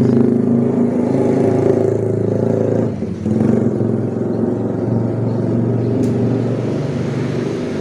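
Steady low mechanical drone of a running motor, dipping briefly about three seconds in.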